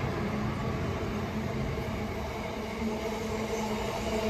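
Container wagons of a freight train rolling steadily past, wheels running on the rails.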